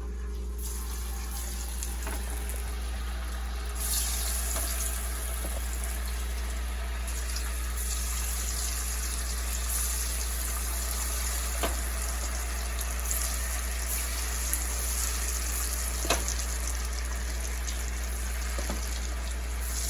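Cornstarch-dusted chicken wings deep-frying in hot oil: a steady sizzling hiss that starts just after the chicken goes in and grows louder about four seconds in, with a few faint pops.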